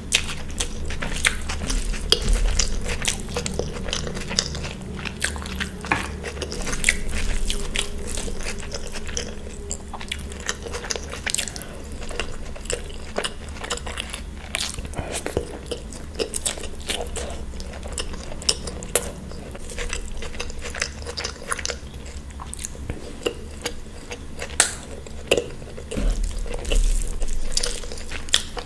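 Close-up mukbang eating sounds: wet chewing, lip smacks and occasional crunchy bites, as spicy mutton liver and mutton masala are eaten with green chillies and salad. Now and then a dish or cutlery clinks.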